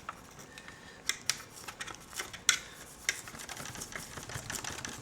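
Irregular sharp plastic clicks and snaps as the black plastic rails along a Roland JD-800 synthesizer's keyboard are pried up, with the loudest snaps about a second in and at two and a half seconds.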